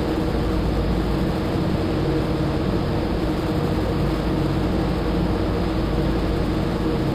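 Bomber aircraft engines running steadily, with a rush of air through the open bomb bay.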